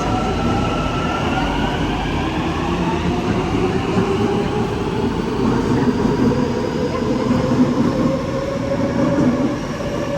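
Hyundai Rotem metro train pulling away, its traction motor whine rising steadily in pitch as it gathers speed, over the rumble of the cars on the rails.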